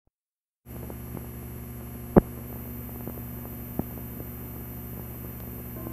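Steady hum and faint hiss of an old 1950s film soundtrack, starting after a moment of silence, with a few scattered clicks and pops, the loudest about two seconds in.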